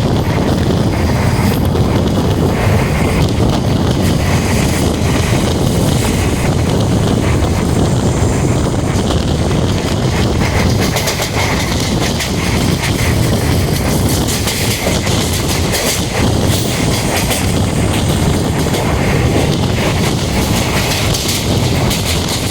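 A train running along the track: a steady rumble of wheels on rails, with a rapid clatter of clicks over it.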